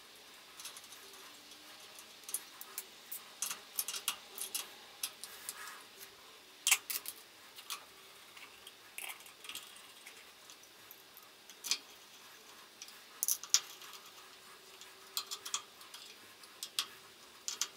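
Light, irregular clicks and ticks of a screwdriver turning the corner screws of an electric motor's terminal box cover, with a few sharper clicks as the lid is seated and the screws are tightened.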